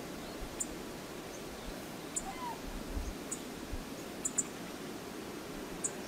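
Steady rush of flowing river water, with short sharp high ticks about once a second, two close together about four seconds in, and a faint brief chirp about two and a half seconds in.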